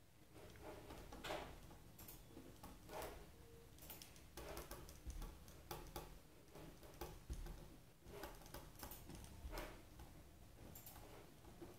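Pen writing on paper: faint, irregular short scratches and taps as words are written out by hand.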